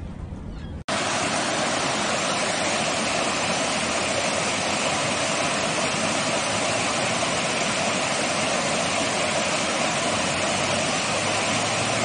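Small waterfall rushing steadily over rocks into a pool, starting abruptly about a second in after a brief low rumble.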